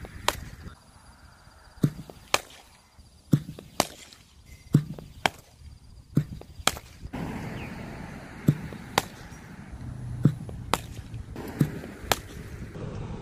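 Cricket bat hitting balls fed in quick succession: sharp knocks come in pairs about half a second apart, roughly one pair every second and a half.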